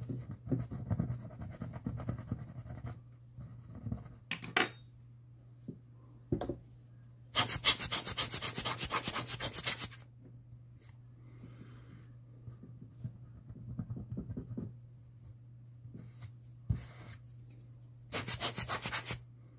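Fast, evenly paced rubbing strokes in two loud bursts, one lasting about two and a half seconds midway and a shorter one near the end. Quieter scrapes and taps fall between them, over a steady low hum.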